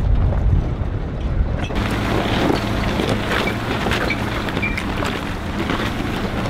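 Pickup truck driving slowly over a rocky dirt track: a steady low rumble of engine and tyres. From about two seconds in, wind hiss on the microphone is added, with scattered crunching clicks of stones under the tyres.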